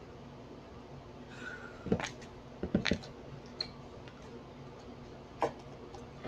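A few short clicks and pops, about four in all and spread irregularly, from slime being mixed and handled, over faint room tone.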